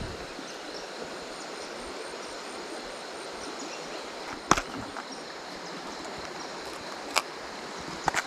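Mountain stream water running steadily, with two sharp clicks, one about halfway through and another near the end.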